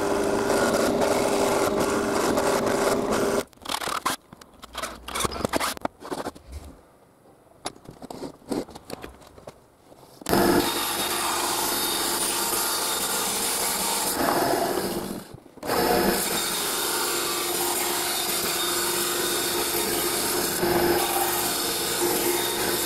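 A drill press runs and drills into a wooden block, stopping after about three seconds. Then come several seconds of scattered knocks and handling sounds. Then a benchtop band saw runs and cuts through a wooden strip, with one brief break about two-thirds of the way through.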